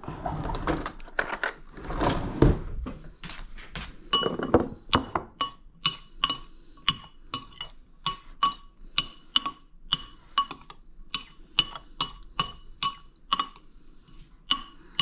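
Metal spoon scraping and knocking in a bowl, then clinking against its rim over and over, about two to three ringing strikes a second, while mixing a tomato dipping sauce.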